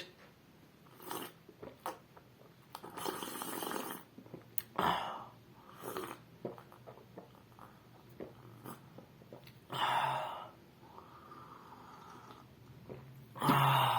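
Carbonated soft drink being drunk close to the microphone: a series of short sips, fizz and swallows, with breaths between them.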